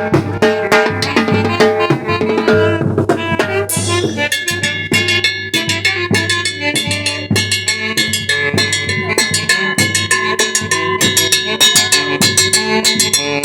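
A brass band playing: wind instruments hold chords over a steady beat of bass drum and snare. A cymbal crash comes about four seconds in, and after it the drumming gets busier and more regular.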